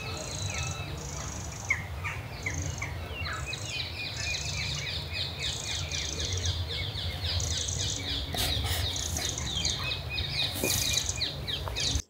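Eurasian wren singing: fast, high-pitched runs of repeated trilled notes that grow denser and more continuous about four seconds in. A steady low rumble runs underneath.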